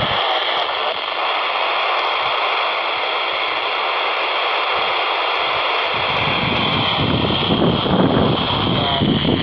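Baofeng handheld transceiver's speaker hissing with FM receiver static while tuned to the AO-91 satellite downlink on 145.960 MHz, no voice coming through. A low rumble joins the hiss about six seconds in.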